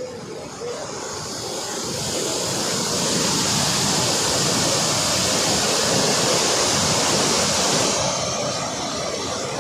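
Water rushing from the open spillway gates of a dam, a steady loud rush that swells a couple of seconds in and eases somewhat near the end.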